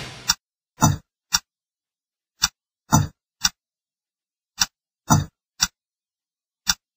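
Sparse percussion intro: sharp, dry hits in groups of three, about half a second apart, with each group about two seconds after the last and silence in between.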